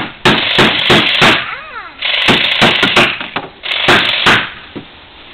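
Hammer striking nails into wood: quick, irregular blows in three runs separated by short pauses, driving the nails down flat.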